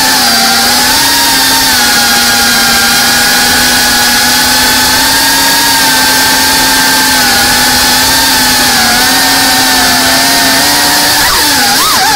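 Geprc Cinelog 35 cinewhoop FPV drone's motors and ducted propellers whining steadily at cruising throttle, heard up close through its onboard camera. Near the end the pitch swoops up and down sharply as the throttle changes.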